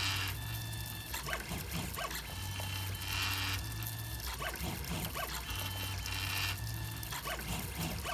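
3D printer's stepper motors whining and humming in changing tones as the print head moves through a repeating pattern, with a brighter rasp about every three seconds. The printer is running sped up to about 194%.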